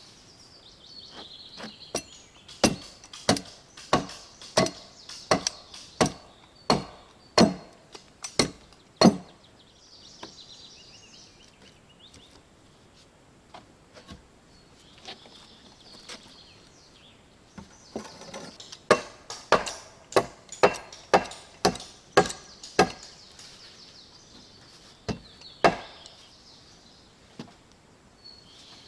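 Chopping wood with an axe: sharp blows at roughly three every two seconds, in two runs with a pause of about ten seconds between them, then one last blow. Birds chirp faintly in the pauses.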